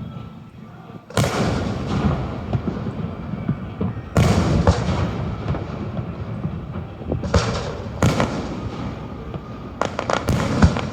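Aerial fireworks shells bursting overhead: about six sharp booms, the first about a second in and two close together near the end, each followed by a rumbling echo that dies away.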